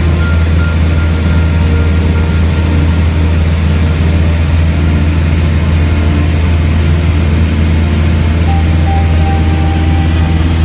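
Steady drone of a low-wing light aircraft's engine and propeller in cruise, heard from inside the cabin, with a strong low hum under an even rush of air noise.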